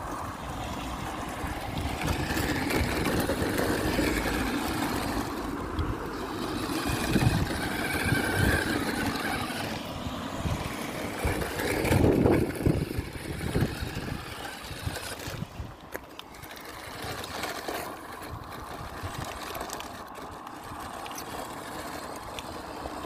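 Hawkin's Bazaar Colossus toy radio-controlled monster truck driving over gravel and grass, its small electric motor and gears whining up and down as it speeds up and slows. It is loudest about twelve seconds in, when it passes close by.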